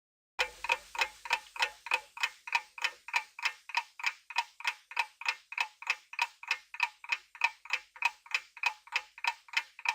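A clock ticking sound effect used as a quiz countdown timer: evenly spaced ticks, about three or four a second. It starts about half a second in and stops just before the end.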